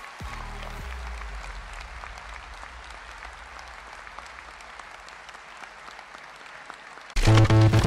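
A large audience applauding, slowly fading. Loud electronic music with a steady beat cuts in abruptly near the end.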